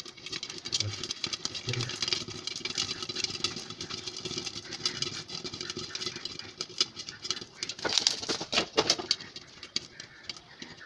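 Sorghum (jowar) grains popping in a covered pan with a glass lid: a dense, irregular run of small sharp pops over a steady hiss, with a louder flurry of pops about eight seconds in.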